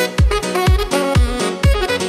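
Background music with a steady kick-drum beat, about two beats a second, under sustained instrument notes.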